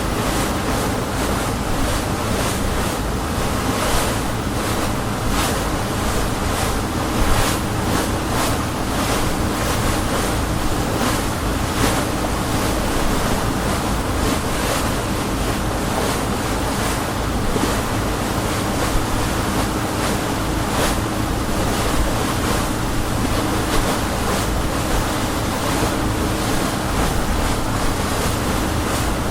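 Motor boat under way on open water: a steady engine drone under continuous rushing water and wind noise on the microphone, with frequent splashes of the hull through the waves.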